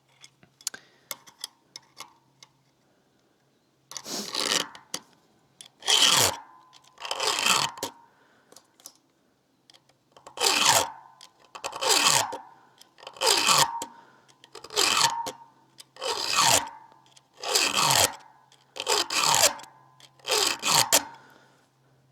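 A hand file rasping across a chainsaw chain's cutter teeth while the chain is sharpened. There are about eleven even strokes roughly one and a half seconds apart, with a short pause partway through, and a few light clicks before the filing starts.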